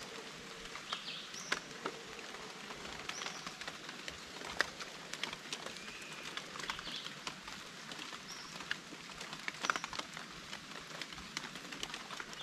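A swarm of grasshoppers clustered on tree trunks, making a faint, scattered pattering of small ticks and clicks that sounds like raindrops.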